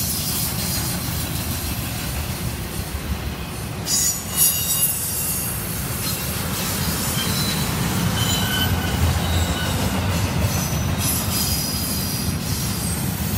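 Double-stack intermodal freight train passing close by: steady rumble of steel wheels on the rails, with short high-pitched wheel squeals and a burst of loud knocks about four seconds in.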